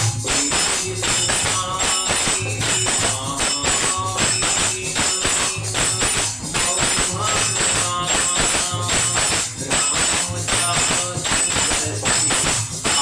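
Devotional kirtan-style music: jingling hand percussion keeps a continuous rhythm over a low drum beat that falls a little faster than once a second, with short melodic notes between the beats.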